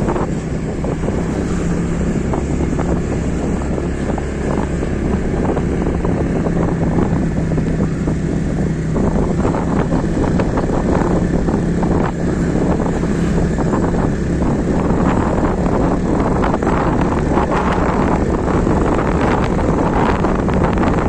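A vehicle engine running at a steady drone, with wind rushing over the microphone.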